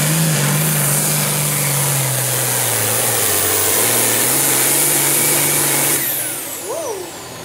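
Limited Pro Stock pulling tractor's turbocharged diesel engine running flat out while dragging the weight sled. Its pitch sags under the load about three seconds in, then picks up again. About six seconds in the engine comes off the throttle and the sound drops away, with a high whine sweeping down.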